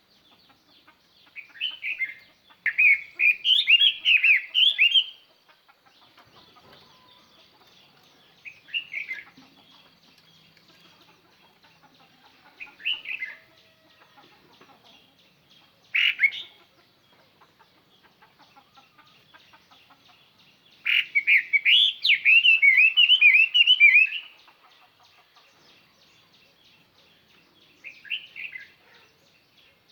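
A Chinese hwamei (hoa mi) kept as a decoy bird sings loud, clear phrases of fast, warbling notes that swoop up and down, a call meant to draw in rival hwamei. Two long bursts, near the start and past the middle, are set apart by a few short phrases and pauses.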